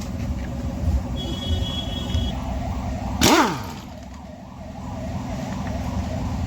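Steady low rumble of passing vehicles. About three seconds in comes a loud, brief sound whose pitch drops quickly, like a horn or engine sweeping past.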